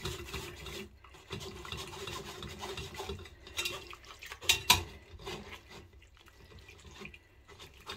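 Wire whisk scraping and stirring against a stainless steel mesh sieve as cooked vegetables and roasting juices are pushed through it, with one sharp metallic clack a little past halfway.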